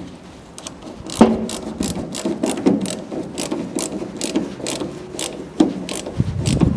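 Socket ratchet on a long extension clicking in quick runs as a hose clamp on the fuel filler-neck hose is tightened. The clicking starts about a second in.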